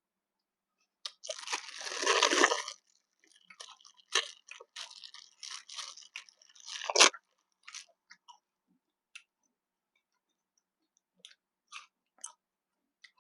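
A person eating close to the microphone: a loud crunching bite about a second in, then chewing with crackly mouth sounds, thinning to a few scattered smacks after about seven seconds.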